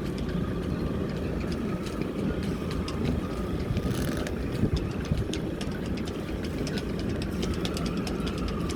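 Strong wind buffeting the microphone, a steady, uneven low rumble, with a faint steady whine and scattered light clicks.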